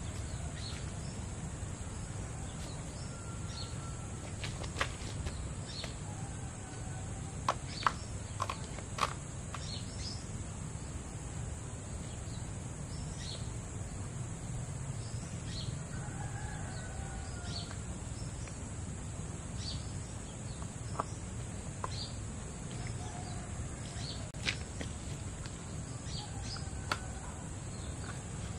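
Outdoor garden ambience: a steady high-pitched insect drone with a few short bird calls scattered through. Several sharp clicks and taps, bunched about five to nine seconds in and a few more later, come from hands working soil and cucumber seedlings in plastic polybags.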